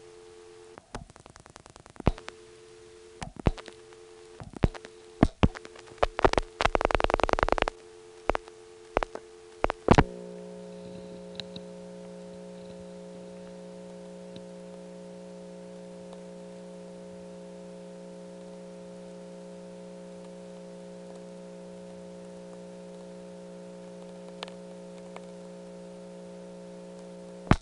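Telephone line audio from a 1977 crossbar office. A two-note dial tone is broken by clicks, with a rapid burst of switching clicks partway through. About ten seconds in, the line goes over to a steady low hum with overtones, the sound of an open-wire trunk on which the call is left hanging without being completed. A single click comes near the end.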